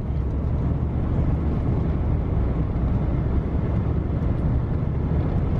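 A vehicle driving at a steady speed, heard from inside the cab: a steady low engine and road rumble.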